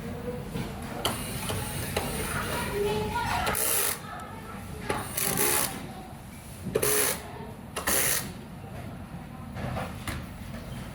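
Clicks, rattles and scrapes of hard plastic parts and a small tool being handled while a robot vacuum is taken apart, with several sharper clacks near the middle. Indistinct voices and a low hum run underneath.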